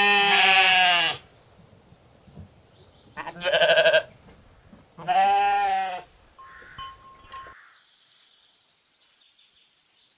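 Sheep bleating: three loud, wavering bleats of about a second each, then a fainter call about 7 seconds in.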